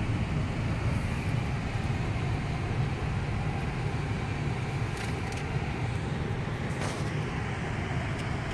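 A car driving: a steady rumble of engine and tyre noise heard from inside the cabin.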